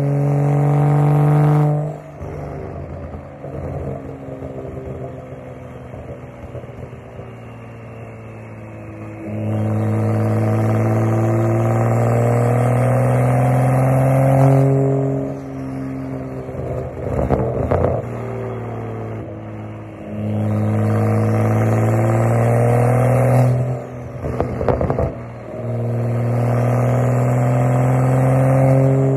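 Straight-piped single exhaust of a BMW M2's N55 3.0-litre turbocharged inline-six: loud, held pulls of several seconds each, four in all, with quieter running between them. A quick cluster of sharp cracks follows three of the pulls as the throttle closes.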